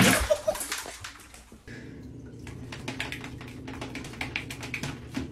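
Steady low motor hum from an appliance running through a black ribbed hose, starting suddenly about a second and a half in, with faint light clicks over it.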